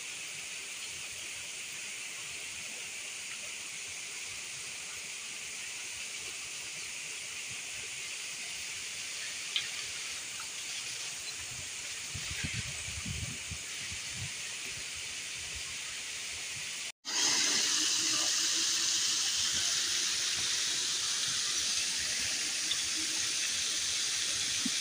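Steady rushing of river water. It drops out for an instant about two-thirds of the way through and comes back louder, with a few faint knocks near the middle.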